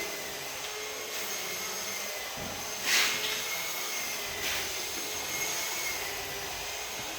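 A machine running steadily: an even hiss with a thin, steady high whine, broken by a sharp knock about three seconds in and a fainter one about a second and a half later.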